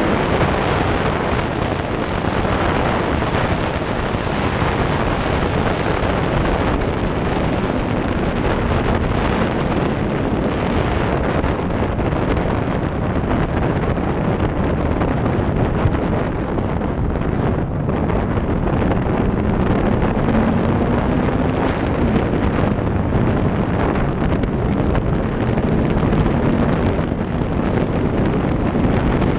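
Heavy wind noise buffeting the microphone of a camera on a Yamaha R1 sport bike at road speed, with the bike's inline-four engine running underneath. The engine note climbs briefly about two-thirds of the way through.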